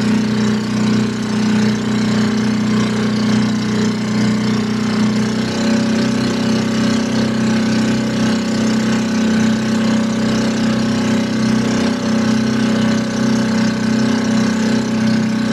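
Outrigger fishing boat's engine running steadily, a constant low drone that picks up slightly about five seconds in.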